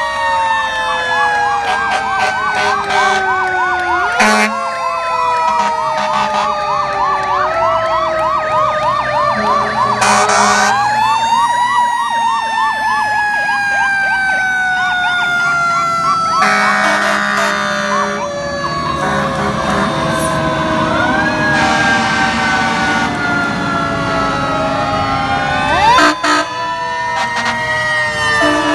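Several fire engines sounding their sirens together as they pass: long, slowly falling and rising wails overlapping a fast repeating electronic yelp, with air horns blasting briefly about ten seconds in and again around seventeen seconds.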